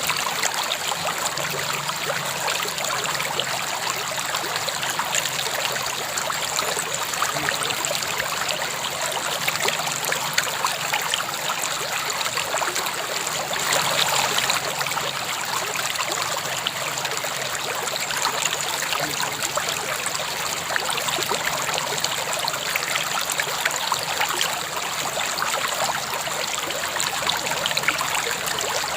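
River water flowing steadily, a continuous rushing and trickling, briefly a little louder about halfway through.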